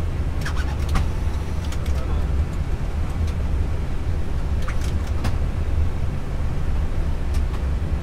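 Steady low rumble inside an Airbus A320 cockpit as the airliner taxis on a wet runway, with a few short ticks scattered through it.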